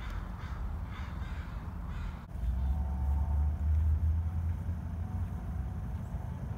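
Several harsh, cawing bird calls in quick succession that stop at a cut about two seconds in, followed by a steady low outdoor rumble with a faint distant hum.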